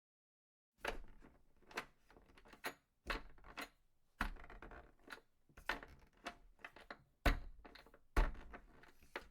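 A series of about a dozen irregular knocks and clacks, each with a short ringing tail, starting about a second in.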